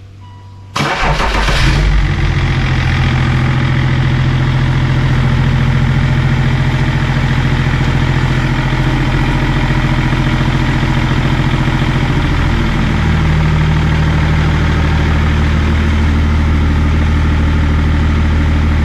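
BMW E39 530d's 3.0-litre M57 straight-six diesel starting: it catches suddenly about a second in, then idles steadily. The idle note shifts slightly about two-thirds of the way through.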